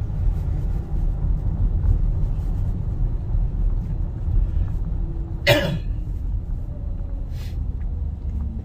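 Steady low road and engine rumble inside a moving car's cabin, with a single short cough about five and a half seconds in.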